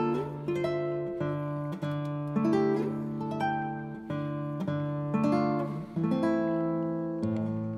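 Background music on acoustic guitar: plucked notes and chords, each struck and left to ring out, one after another.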